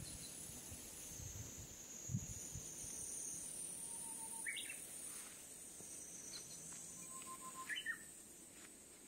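Japanese bush warbler (uguisu) singing its 'hoo-hokekyo' song twice, each a held whistle followed by a quick flourish, about four seconds in and near the end. Under it runs a steady high-pitched insect buzz.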